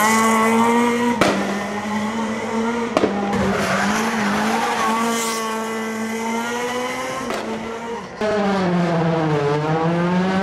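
Rally car engines revving high and hard, with tyre squeal, across a few abrupt cuts. Near the end one engine's note drops and then climbs again.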